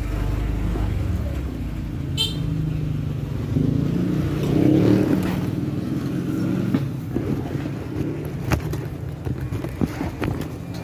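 Honda motor scooter's engine running as it rides along a street, a steady low hum that swells about four to five seconds in. A short high chirp sounds about two seconds in, and a few sharp clicks come near the end.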